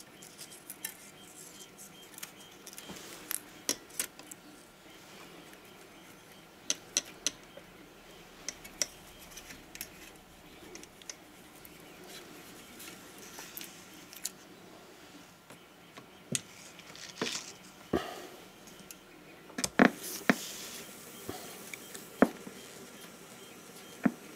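Handling noise from loading tape on a Nagra III reel-to-reel recorder: scattered small metallic clicks and clinks as the reels are seated on their spindles and the tape is threaded past the heads and guides, with the loudest knocks about two-thirds of the way through.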